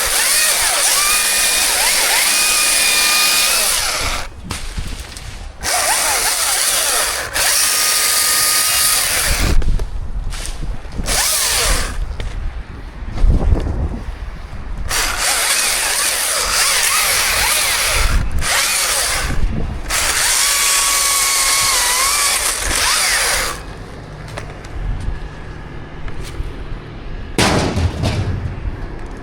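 Chainsaw cutting wood in repeated bursts of a few seconds each, with short pauses between cuts and a few low thumps in the gaps.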